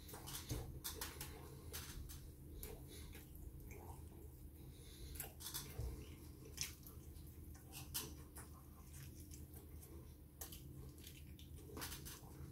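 A person chewing KFC fried chicken close to the microphone: wet mouth sounds with scattered sharp crackles and clicks.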